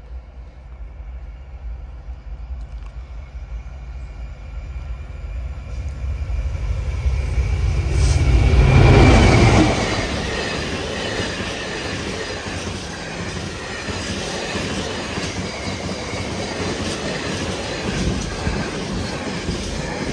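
GBRf Class 66 diesel freight locomotive with its EMD two-stroke engine approaching and passing, loudest about nine seconds in with its pitch dropping as it goes by. It is followed by the steady running noise of a long intermodal train of container flat wagons passing at speed.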